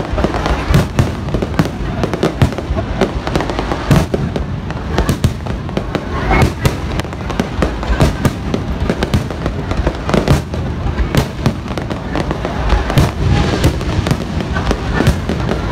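Aerial firework shells bursting overhead in quick, unbroken succession: a dense barrage of booms and crackles, several bangs a second over a constant low rumble.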